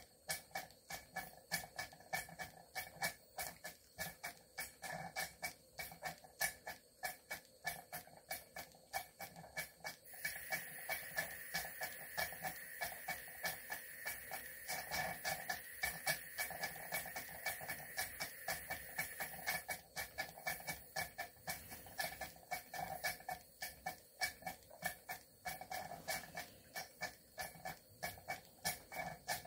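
Cotswold Heritage Cirrus model steam beam engine running steadily while belted to a fan: a quick, regular beat of exhaust puffs and clicks, about three or four a second. A steady hiss joins in about a third of the way through and stops about two-thirds through.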